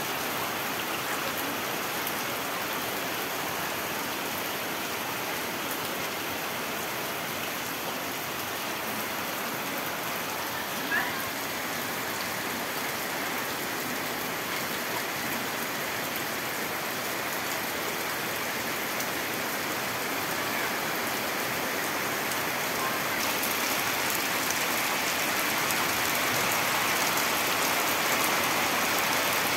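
Rain falling steadily on tree leaves and paving, growing a little louder and hissier over the last few seconds. One brief sharp sound stands out about eleven seconds in.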